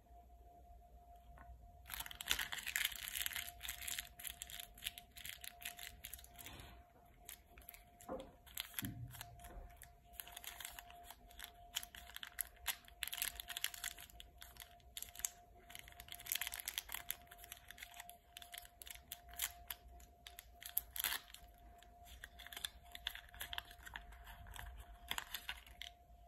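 KitKat's plastic wrapper being torn open and crinkled by hand: a dense run of crackles and rustles starting about two seconds in, easing off briefly partway through, then going on until the bar is out.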